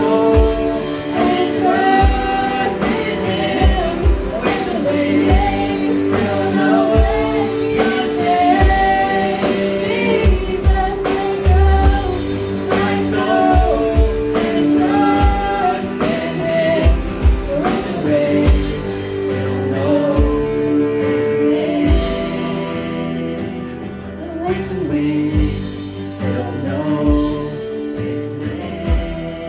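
Worship song: a singer's melody over a band with held chords, guitar and a steady kick drum. It grows quieter over the last few seconds.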